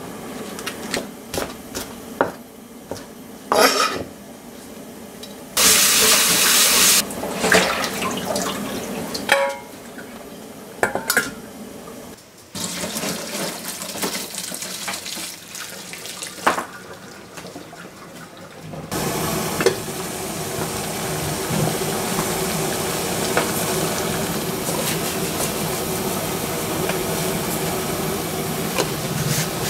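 A run of kitchen sounds. First, knocks of a knife and hands on a plastic cutting board and a short loud rush of noise. Then, around the middle, water and cooked vermicelli pour into a plastic colander in a steel sink. For the last ten seconds a pot of water boils hard with a steady seething noise.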